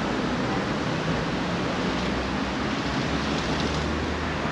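Steady city street traffic noise: an even rushing hiss with a low engine hum underneath.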